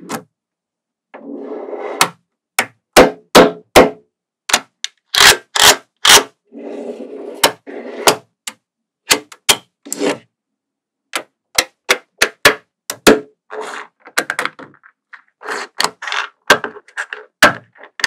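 Small magnetic balls clicking and snapping together in sharp clicks, some in quick clusters, between stretches of balls rattling and rubbing against one another as rows are pressed and pushed into place with a plastic card.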